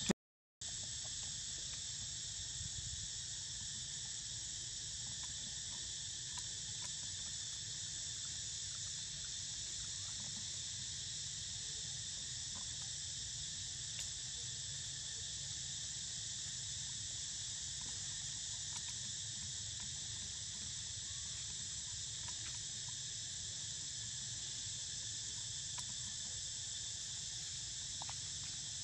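Steady high-pitched insect chorus made of several even, unbroken tones, with a low rumble beneath it. The sound drops out for a moment just after the start.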